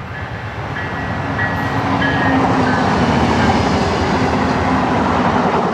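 Amtrak passenger train passing, the sound swelling over the first few seconds and staying loud to the end.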